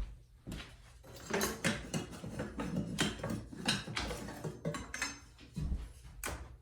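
Metal tools and parts clinking and clattering in quick, irregular knocks as the motorcycle is taken apart.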